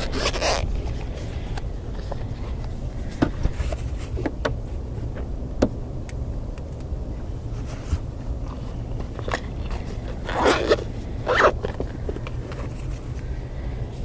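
Gear being handled: scattered light clicks and rustles, with two louder rustling scrapes about ten and eleven seconds in, over a steady low rumble.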